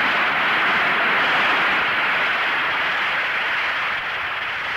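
Audience applauding, a steady wash of clapping from a large crowd in an old, band-limited recording.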